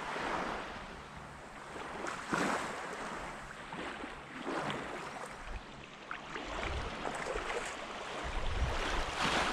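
Water sloshing and splashing as someone wades slowly through shallow water, swelling every couple of seconds with the steps. Low wind buffeting on the microphone near the end.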